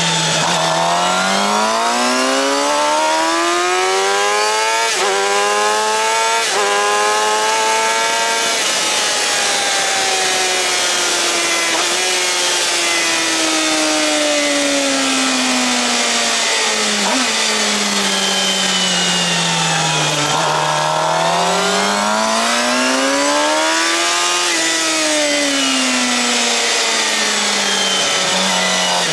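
Suzuki GSX-R750 inline-four with a Yoshimura R-11 slip-on exhaust, heard onboard at racing speed. It revs up hard with two quick upshifts, winds down through a long slowdown, pulls hard again, then slows toward the end, over steady wind rush on the microphone.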